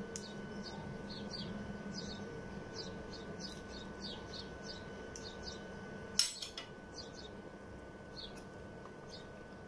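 Small birds chirping again and again in the background over a faint steady high whine. About six seconds in comes one sharp clatter of a kitchen utensil against the stainless steel pot.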